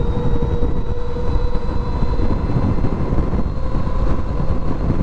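Wind rushing over the microphone as the NIU XQi3 electric motorcycle accelerates hard toward its 45 mph top speed. A faint high whine from the electric drive rises slowly in pitch underneath.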